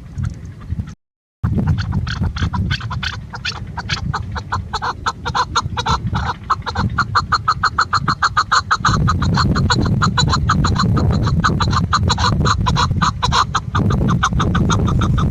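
Female chukar partridge calling: a long, fast run of short, evenly repeated clucking notes over a low background rumble, with a brief dropout about a second in.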